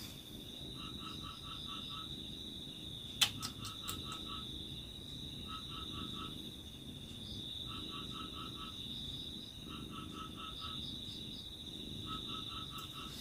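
Faint night chorus: a steady high insect trill, with a frog calling in short runs of four to six notes every couple of seconds. A single sharp click about three seconds in.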